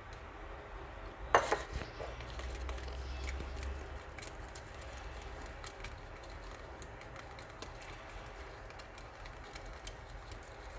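A thin stirring rod clinking and ticking lightly against a small cup while the iron sulfate–EDTA solution is stirred, with one sharper knock about a second and a half in.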